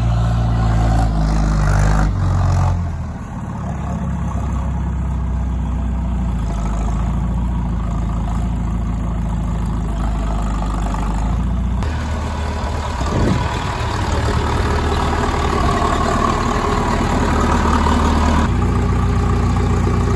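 Farm loader's engine running as the bale is moved, its engine speed stepping up and down a few times.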